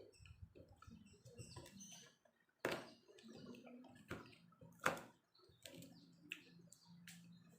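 Close-miked chewing and eating of french fries: soft mouth sounds broken by sharp clicks and crunches. The loudest come about a third of the way in and near the middle.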